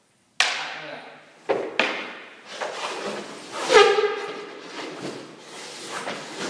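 A hockey goalie's skates, pads and stick scraping and knocking on the rink surface as he pushes across the crease, with several sharp knocks and scrapes. The sound cuts in abruptly about half a second in, and just before the middle comes the loudest moment, a short pitched sound that falls in tone.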